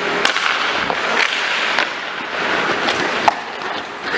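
Ice hockey skate blades scraping and carving on the ice, with several sharp clacks of sticks and puck.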